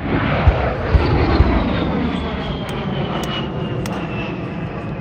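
Aircraft passing low overhead: its engine noise comes in suddenly loud, with a high whine that falls slowly in pitch as it goes by. A few dull thumps sound in the first second and a half.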